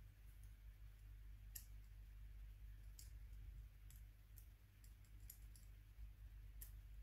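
About seven faint, sharp clicks spread over several seconds as a small pick works against the metal-framed Nokia N93 camera module, over a low steady hum.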